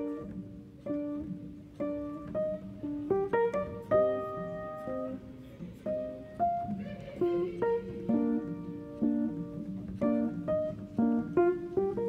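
Background instrumental music: a melody of plucked string notes, several a second, each ringing briefly and fading.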